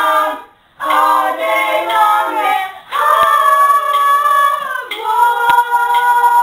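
Several voices singing a cappella in three phrases of long held notes, each broken off by a short gap, with a few faint clicks between.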